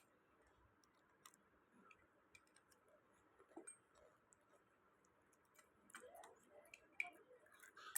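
Near silence with a few faint, scattered clicks, slightly busier in the last two seconds.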